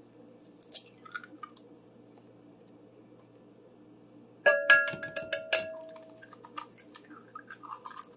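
An egg tapped in a quick run of sharp knocks against the rim of a glass mixing bowl about four and a half seconds in, the glass ringing briefly after each knock. Softer clicks and crackles follow as the shell is pulled apart over the bowl, with a few faint clicks of handling about a second in.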